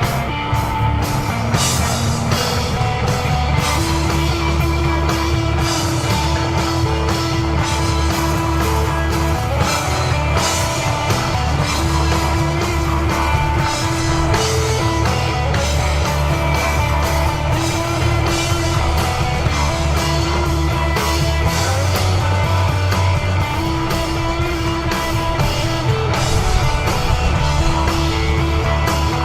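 Live instrumental desert rock from a trio: electric guitar playing held, ringing notes over bass guitar and a drum kit with steady cymbal work.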